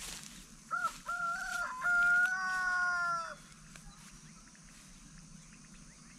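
A rooster crowing once, a cock-a-doodle-doo of about two and a half seconds made of a few short notes and a long held last note.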